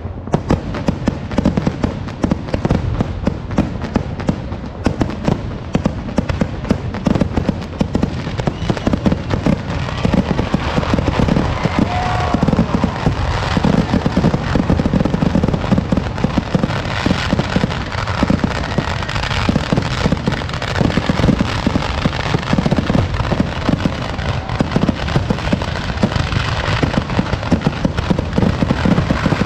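A dense barrage of vedikkettu festival fireworks: rapid, overlapping bangs and crackling with no gaps, growing denser and louder from about ten seconds in.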